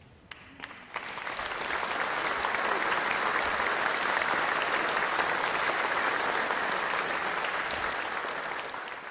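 Audience applauding: a few scattered claps, swelling within a second into steady applause that tails off near the end.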